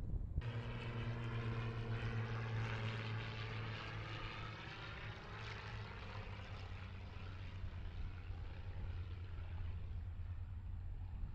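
Small propeller airplane taking off under full power: a steady engine-and-propeller drone that comes in abruptly about half a second in, is loudest over the next few seconds, then fades as the plane climbs away.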